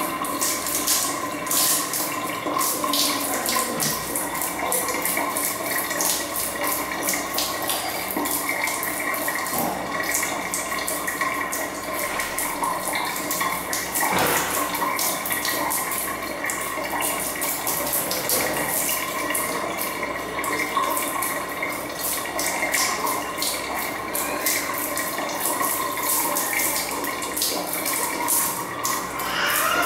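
Thin jet of water spraying steadily from a bathroom tap fitting onto tiled floor and wall, a continuous hiss with spattering, and a faint steady tone running under it.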